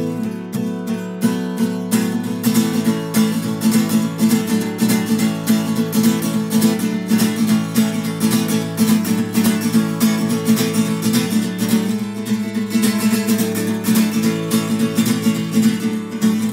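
Acoustic guitar music: a strummed and picked song introduction, with no singing yet.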